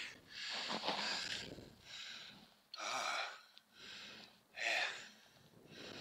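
A man breathing close to the microphone, short breathy puffs in and out roughly once a second.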